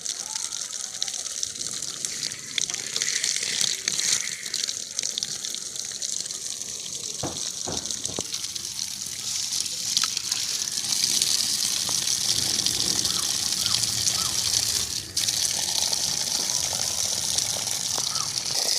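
Water gushing from a plumbing outlet, a steady hiss that grows louder about ten seconds in and drops out for a moment around fifteen seconds in.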